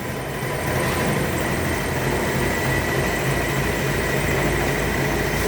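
Willys MB's four-cylinder Go Devil flathead engine running steadily after being revived, a low pulsing rumble with a steady high whine alongside it.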